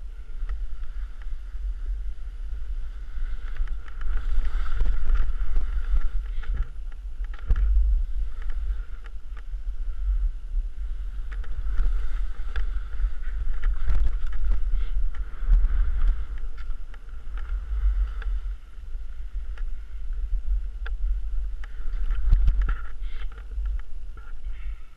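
Wind buffeting the microphone of a helmet camera as a skier descends, with the skis scraping over snow and scattered sharp knocks as they hit bumps and ruts.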